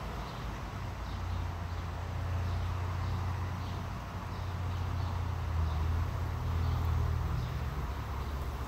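A steady low rumble like a running engine, swelling slightly after about a second, with faint short chirps repeating high above it about every half second.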